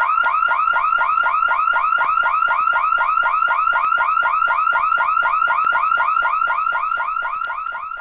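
Synthesizer effect from the vinyl record: a chirp that rises in pitch, repeated about four to five times a second at a steady pace, fading out near the end.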